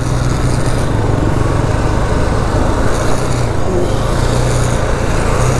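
Motorcycle engine running steadily as the bike is ridden slowly over a rough, unpaved road, with a steady rushing wind and road noise.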